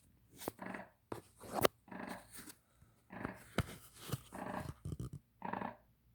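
Wound vac (negative-pressure wound therapy unit) attached to a chest wound making farting noises: a run of short, raspy bursts, some coming in quick succession and others about half a second apart, with a few sharp clicks among them.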